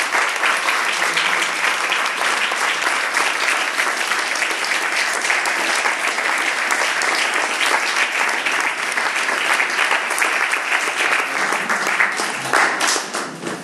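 Audience applauding, a steady patter of many hands clapping that dies away near the end.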